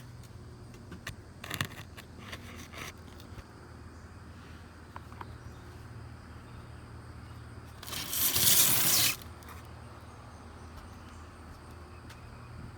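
Dry rustling and tearing of sweet corn husks being handled and pulled back: a few short rustles, then one loud tearing rustle lasting about a second past the middle.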